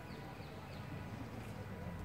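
Faint outdoor background: a steady low rumble, with a few short high chirps in the first second.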